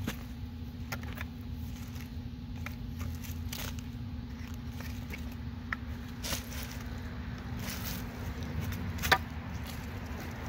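A shovel and a long-handled digging tool working hard, rocky clay soil: scattered scrapes and short knocks, the sharpest one about nine seconds in, over a steady low hum.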